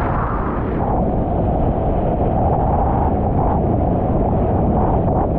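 Strong wind buffeting on a kitesurfer's action-camera microphone, a loud steady roar with the rush of broken surf under the board mixed in.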